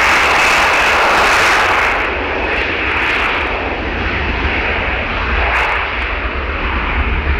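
Jet noise from a business jet's twin rear-mounted turbofan engines as it rolls along the runway: a steady, loud roar with a whine near the top. It eases slightly after about two seconds.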